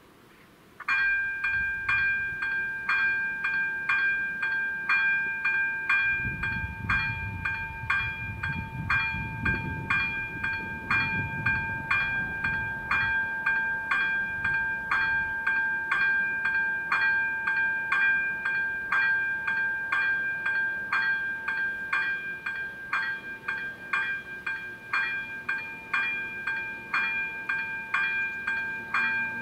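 A steady, high-pitched ringing tone that pulses evenly about twice a second, cutting in suddenly about a second in. A low rumble rises under it for several seconds in the middle.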